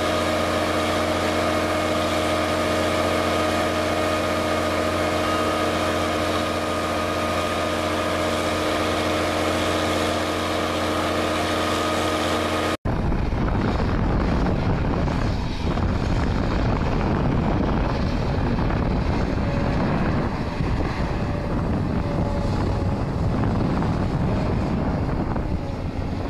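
Steady drone of an amphibious cutter-suction dredger's engine and pump, holding several constant tones. After a sudden cut about 13 s in comes a rougher, noisier low rumble from a long-reach excavator working in mud, with wind buffeting the microphone.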